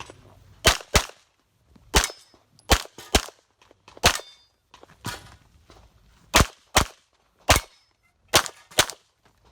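A 9mm pistol firing about a dozen rapid shots, several as quick double taps about a third of a second apart, during an IPSC course of fire.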